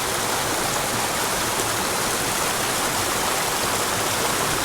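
Small mountain creek rushing and splashing over rocks into a plunge pool, a steady water noise.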